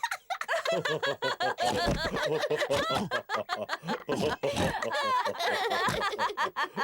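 Several cartoon characters laughing together, overlapping giggles and chuckles from more than one voice.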